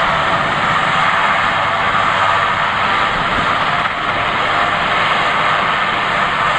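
Sikorsky S-61N rescue helicopter on the ground, its twin turbine engines and main rotor running steadily, loud and even, while it waits to lift off.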